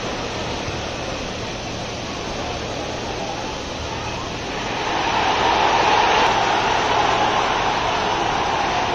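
Stadium crowd at a football match, a steady noise of many voices that grows louder about five seconds in as an attack reaches the penalty area.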